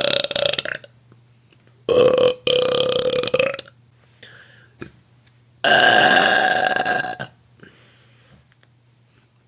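A woman belching on purpose, three big burps: one tailing off at the start, a two-part burp about two seconds in, and a long burp of steady pitch from a little past five seconds.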